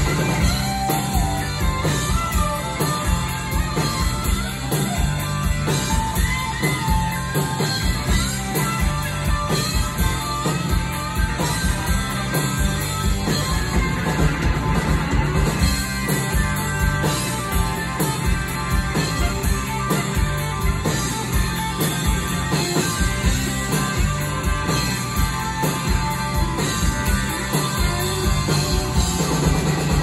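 Live rock band playing loudly: an electric guitar lead with bending notes over a driving drum kit, heard from the audience.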